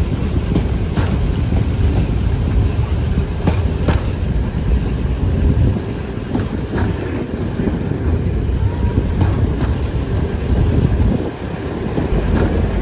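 Heritage passenger train running along the line, heard from an open carriage window: a steady low rumble of wheels on rail with rushing air, and a few sharp clicks over rail joints.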